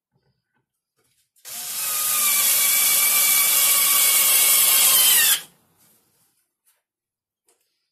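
Cordless drill running for about four seconds, boring into plywood, its motor whine rising just before it stops.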